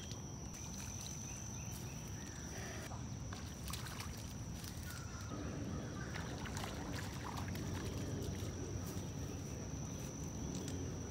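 Steady pondside outdoor background: a constant high-pitched insect drone over a low steady rumble, with a few light clicks and a small splash on the water surface about six seconds in.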